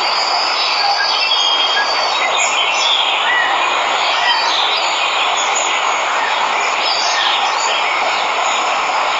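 Steady rush of falling water from a waterfall, with birds chirping and whistling in short calls over it throughout.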